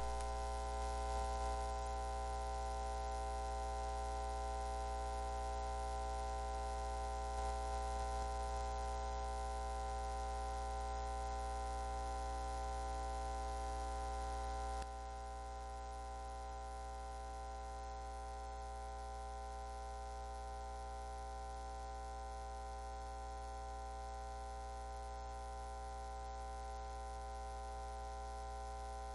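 Steady electrical mains hum with a buzzy stack of tones, dropping slightly in level about halfway through.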